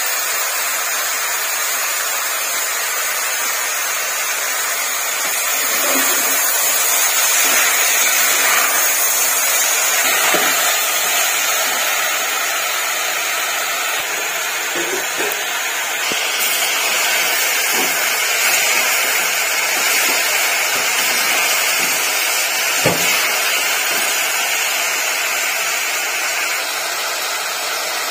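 Steady rushing hiss of a kitchen stove-top, with the occasional knock and scrape of a steel spoon stirring vegetables in an aluminium pressure cooker.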